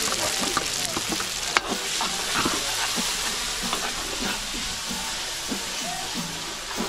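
Pork bhutuwa (pork and offal) sizzling as it fries in a karai, with the short knocks and scrapes of stirring against the pan. One knock, about a second and a half in, is sharper than the rest.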